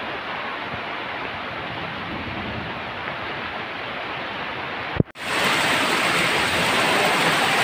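Heavy tropical rain falling steadily, an even hiss. About five seconds in, at a cut, it becomes louder and brighter.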